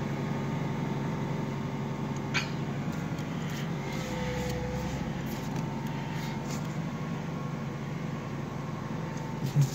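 A 1998 Ford Mustang's engine at a steady fast idle just after a cold start, heard from inside the cabin. A brief click about two and a half seconds in.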